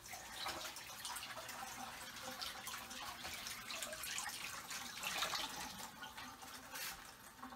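Kitchen faucet running with water splashing as fresh chives are rinsed under it, fading near the end.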